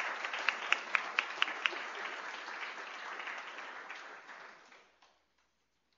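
Audience applauding, with several sharp single claps close by in the first two seconds; the applause fades out about five seconds in.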